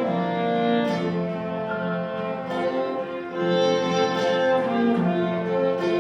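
Background music played by bowed strings, violin and cello, in slow sustained notes.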